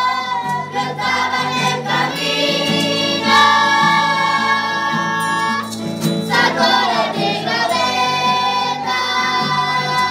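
Children's church choir singing a hymn together, with one long held note from about two seconds in to nearly six seconds.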